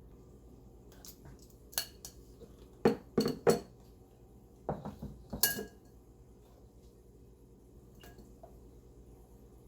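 Utensils and containers knocking and clinking together: a cluster of sharp clinks over a few seconds, one ringing briefly, then a single faint knock near the end.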